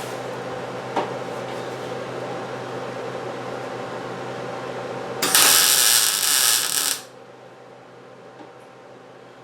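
A steady machine hum, then a loud burst of harsh, hissing power-tool noise on sheet metal for just under two seconds, starting about five seconds in and stopping suddenly.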